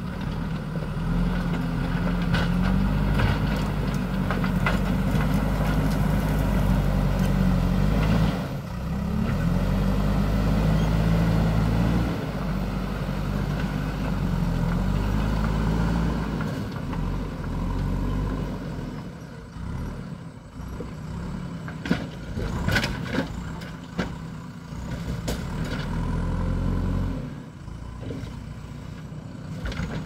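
JCB backhoe loader's diesel engine working under load, its pitch rising and falling as the revs change. After about halfway it drops back to a lower, quieter running, broken by a few sharp clanks.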